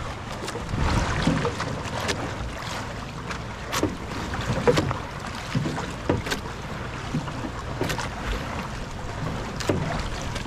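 Wind on the microphone over water lapping and slapping against the hull of a small wooden outrigger boat, with short sharp slaps every second or two.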